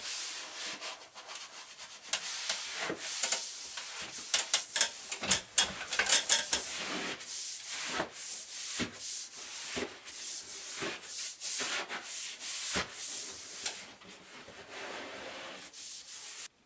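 Paper-hanging brush swept repeatedly over Wallrock thermal liner, bristles rubbing on the paper as it is smoothed onto the wall. The strokes are short and uneven, busiest in the first half.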